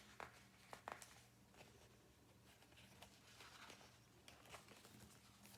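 Near silence: faint room tone with a low steady hum and a few faint soft clicks in the first second.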